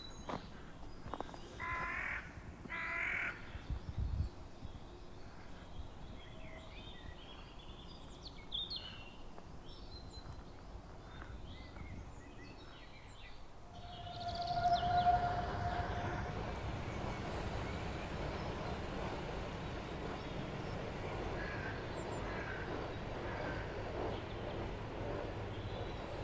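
Harsh bird calls, twice near the start, with scattered faint high chirps. From about halfway a steady rushing noise comes in and stays, louder than the calls.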